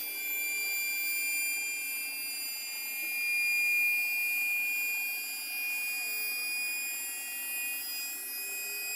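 Electric hydraulic pump of a PJ tandem dump trailer running as it powers the dump bed back down: a steady, high-pitched whine of several tones.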